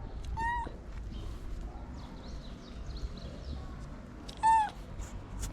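Cat meowing twice: two short calls, the first about half a second in and a louder one near the end.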